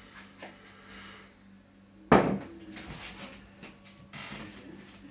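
Kitchen handling noise at a counter: small clicks and one sharp knock with a short ring about two seconds in, like a cupboard door or dish being set down, over a faint steady hum.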